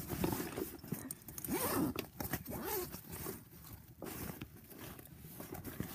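Rustling and scratchy handling noises close to the microphone, an irregular run of short scrapes that is loudest in the first few seconds and dies down after about four seconds.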